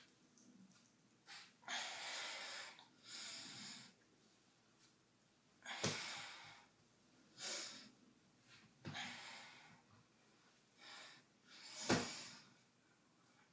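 Heavy, noisy breathing of a teenage boy working through a set of dumbbell lifts: short forceful breaths in and out, about one every second or two, with a sharper, louder puff just before the end.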